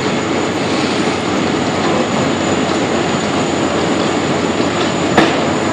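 Road-milling machine grinding off the asphalt road surface, with heavy diesel engines running, as one steady, dense, rattling noise. A single sharp knock comes about five seconds in.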